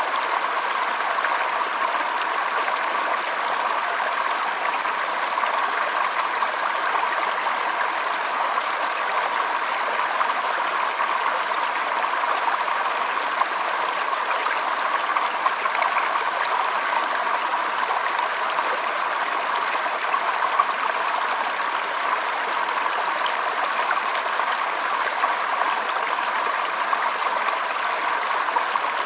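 Shallow stream flowing and trickling over stones, a steady splashing with small flickering bubbles.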